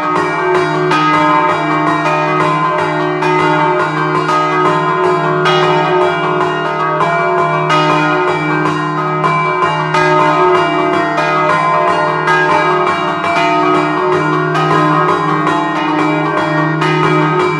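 Three stationary bronze church bells, a set in E-flat cast by De Poli in 1947, rung by hand in a Friulian scampanotada: ropes tied to the clappers strike the bells in a fast, rhythmic pattern, and the tones overlap and ring on. Loud and close, heard from inside the belfry.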